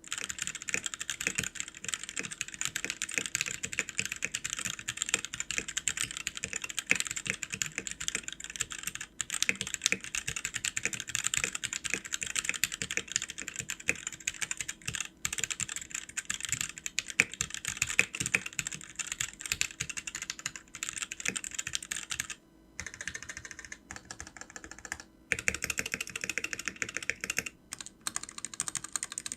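Sades Kunai 65% mechanical keyboard with OEM-profile keycaps being typed on fast in a typing test: a dense run of keystroke clicks, broken by a few short pauses in the last third.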